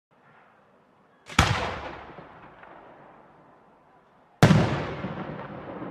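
Two aerial firework shells bursting about three seconds apart, each a sharp bang followed by a long echo that fades away.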